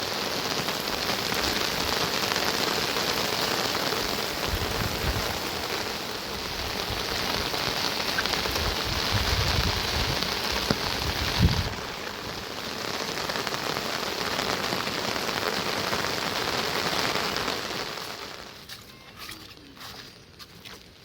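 Heavy rain falling steadily on surfaces, with a few low thuds, the loudest about halfway through. Near the end the rain drops away abruptly, leaving only scattered drips and taps.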